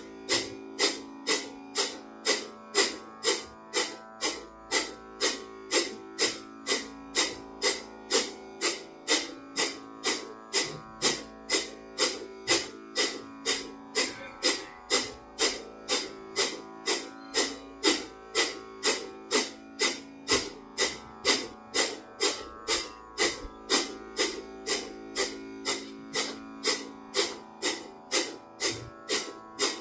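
Rapid, forceful Kapalabhati exhalations through the nose: short sharp puffs of breath at a steady pace of about two a second. Under them is calm background music with a sustained drone and a plucked string instrument.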